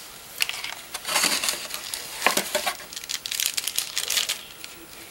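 Plastic packaging crinkling and rustling in irregular crackles as items are handled and lifted out of a cardboard box, starting about half a second in and dying away near the end.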